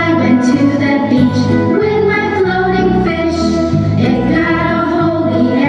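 Music playing, with singing voices over a bass line that changes note about every half second.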